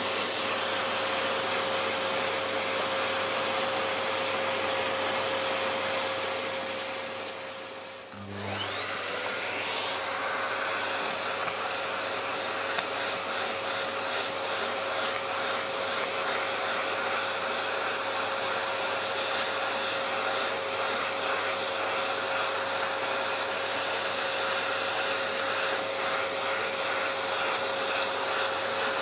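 Vacuum cleaner motor running steadily with a high whine. About eight seconds in it fades and cuts out, then comes straight back on, its whine rising as the motor spins up, and runs steadily again.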